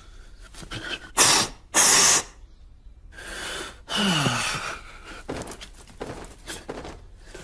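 Cartoon sound effects: two short, loud hissing bursts about half a second apart, then a longer hiss followed by a sound that falls in pitch.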